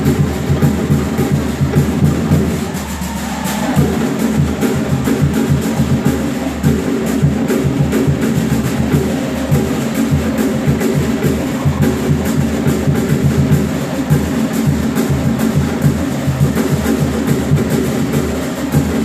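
Live Cook Islands drumming for a group dance: a drum ensemble, wooden slit drums among them, playing a fast, even beat.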